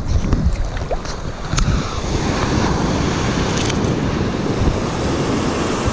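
Wind buffeting the microphone over the steady wash of surf, with a few faint clicks in the first couple of seconds.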